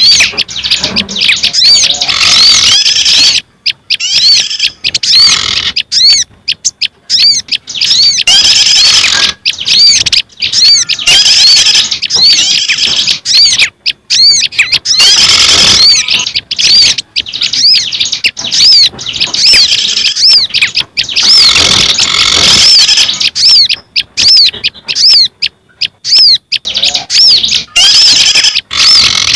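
Bird-lure recording mixing the calls of several small songbirds (prenjak, ciblek, sirtu and sogok ontong): rapid, high, repeated chirps in dense, loud runs broken by short gaps.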